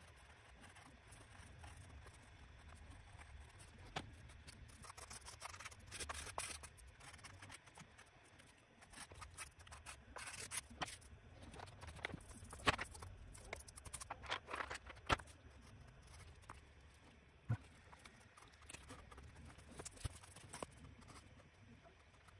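Coloured pencil scratching in short strokes on tracing paper, faint, broken by scattered light taps and rustles.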